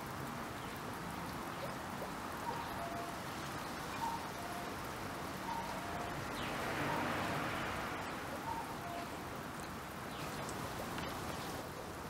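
Common cuckoo calling faintly, a two-note descending 'cuck-oo' repeated several times, over a steady background hiss of water that swells briefly about halfway through.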